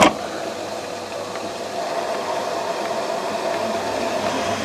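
Steady hiss and faint hum from a Potterton Promax Combi HE Plus gas combi boiler and its heating circuit as it starts from cold after a power flush, with air still being worked out of the water; a sharp click right at the start, and the sound grows slightly louder about two seconds in.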